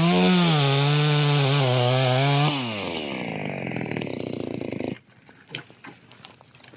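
Small clone two-stroke chainsaw running flat out in a cut, its pitch wavering under load. About two and a half seconds in the throttle is released and the engine winds down, then it goes quiet about five seconds in, leaving a few faint clicks.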